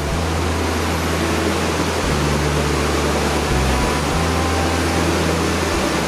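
Steady roar of a river in flood rushing over submerged falls, with background music's low sustained notes shifting every second or two underneath.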